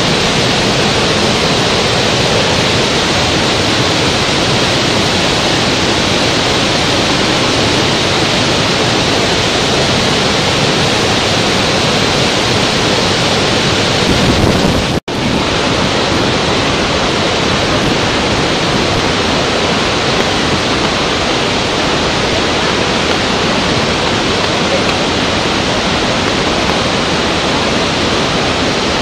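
Steady rushing of water from a large waterfall, an even, full-range hiss and rumble that drops out for an instant about halfway through.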